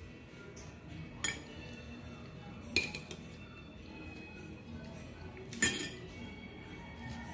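Metal spoon and fork clinking and scraping against a plate while eating, with three sharp clinks: about a second in, near the middle, and again a little before the end. Faint background music runs underneath.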